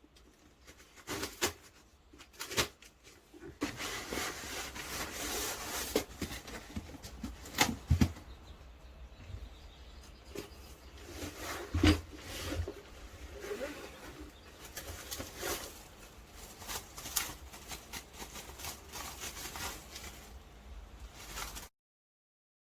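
Handling noise: irregular clicks, knocks and rustling, with two louder knocks about eight and twelve seconds in.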